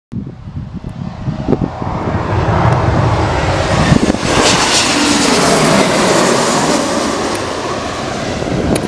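Embraer E195 airliner's twin turbofan jet engines as it passes low overhead on landing approach. The jet rumble swells to its loudest about four seconds in, with a hiss and a falling whine as it goes over, then eases off as it moves away toward the runway.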